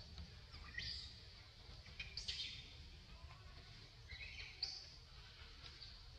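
A few short, high-pitched chirping calls from animals in the trees, spaced a second or two apart over a low background rumble.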